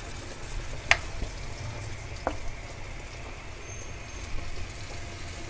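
Shredded-cabbage pakoras shallow-frying in hot oil in a pan, a steady sizzle. A sharp click about a second in and a fainter one a second later, from the metal spoon against the pan.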